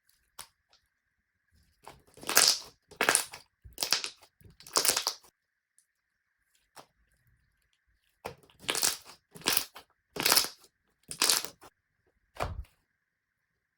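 Slime being worked by hand in short, separate presses: a run of about four, a pause, then about five more.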